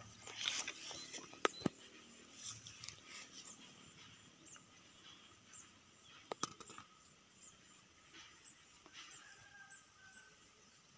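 Faint outdoor ambience with short, high chirps from a small animal repeating every half second or so, and a few sharp clicks.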